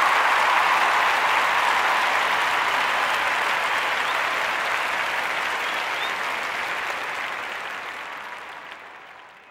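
Applause, a dense steady clapping that fades out over the last couple of seconds.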